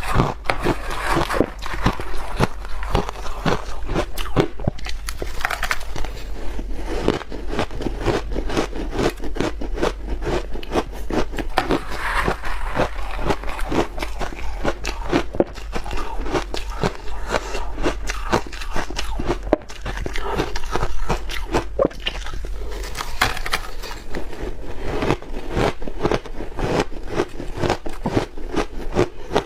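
Ice being bitten and chewed close to the microphone: a continuous run of sharp, rapid crunches and cracks.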